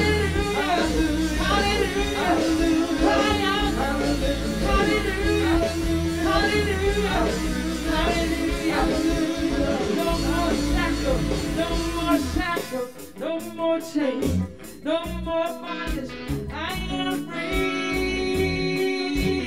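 Live worship band playing a song: a singer over guitar, bass and drums. About twelve seconds in the bass and drums drop away, and the singing carries on over a lighter guitar accompaniment.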